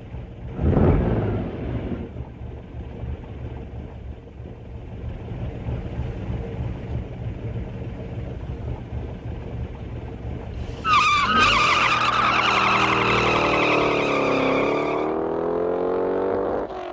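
V8 muscle car engines running and revving, with a loud swell of a car going past about a second in. About eleven seconds in, a sudden loud tire squeal breaks out over the revving engine, its pitch wavering, and dies away just before the end.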